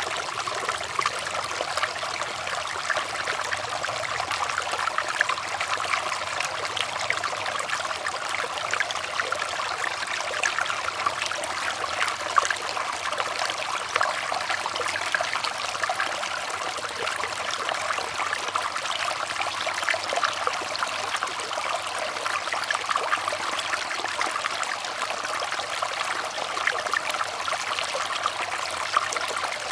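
Water running and trickling steadily, like a small stream over stones, with a fine continuous babble of splashes.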